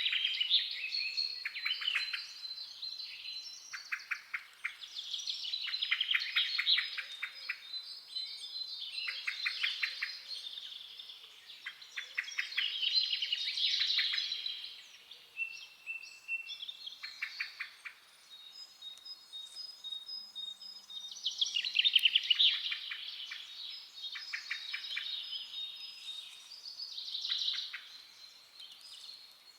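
Forest songbirds singing: short rapid trilled phrases repeated every couple of seconds, over thin, high, steady whistled notes.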